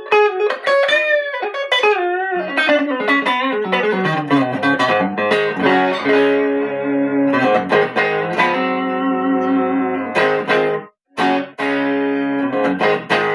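WestCreek TT-20 Telecaster-style solid-body electric guitar played clean on its neck pickup through a small amp. It opens with bent notes and vibrato, then ringing single notes and chords, cut off briefly near the end before it picks up again.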